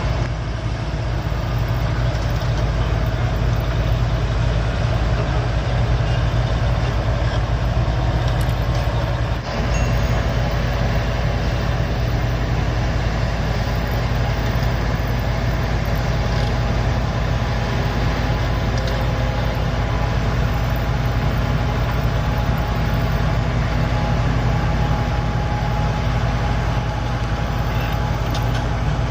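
Komatsu bulldozer's diesel engine running steadily and loudly, with a brief dip about nine seconds in.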